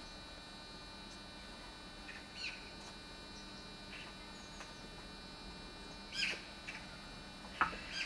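Small birds chirping: a few short, high calls spaced over several seconds, with a single sharp knock near the end.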